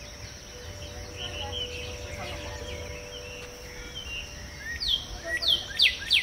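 Birds chirping over a low background rumble and a faint steady hum. Near the end, a run of loud, sharp falling chirps repeats about twice a second.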